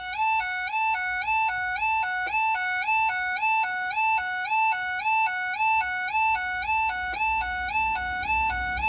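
Level crossing warning alarm sounding steadily, a two-tone signal switching between a higher and a lower pitch about twice a second: a train is approaching. Near the end the low rumble of the approaching train starts to grow beneath it.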